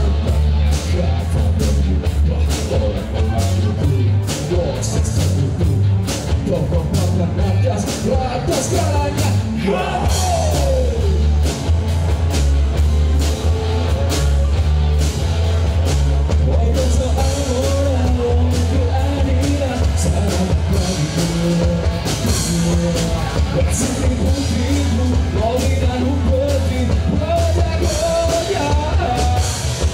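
Live rock band playing loudly: electric guitars and a drum kit, with a male singer.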